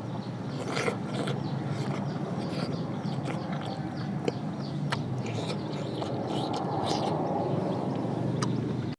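A person eating during a mukbang: chewing and mouth sounds, with a few short clicks scattered through, over a steady background noise.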